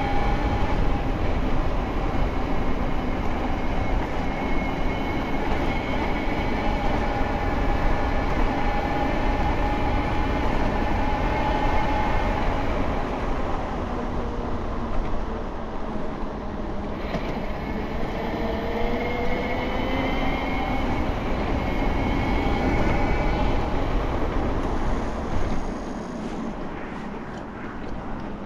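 Bafang BBSHD mid-drive motor, run on 72 volts, whining under load while riding, its pitch slowly rising and falling with speed, over heavy wind rumble on the microphone.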